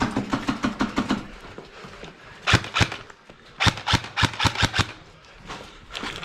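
Airsoft guns firing in rapid bursts. There is a burst at the start, a few sharp shots about two and a half seconds in, and a longer burst around four seconds in.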